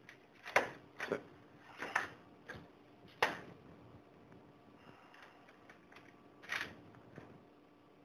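Small parts and cables being picked up and set down on a workbench: about seven light clicks and knocks, five in the first half and two near the end.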